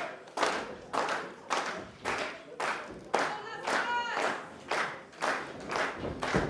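Wrestling crowd clapping in unison to a steady beat, about two claps a second, with voices shouting between the claps.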